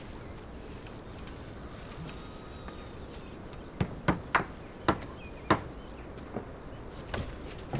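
Quiet outdoor background with a run of about seven sharp, short knocks in the second half, irregularly spaced a third to half a second apart.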